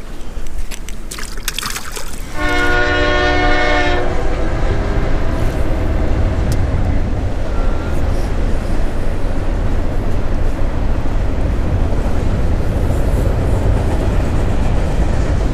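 A train passing: its horn sounds once for about a second and a half, starting about two seconds in. The steady rumble of the train rolling by begins at the same moment and carries on.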